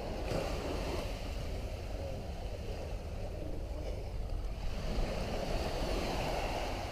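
Steady rush of wind and surf, heaviest in the low end.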